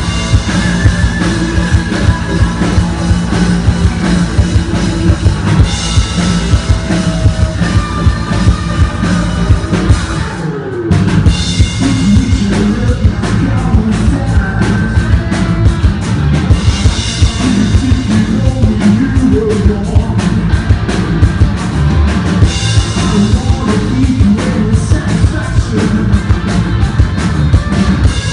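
Hard rock band playing live: a drum kit keeping a driving beat under guitars and a singing voice, with a brief break about ten seconds in.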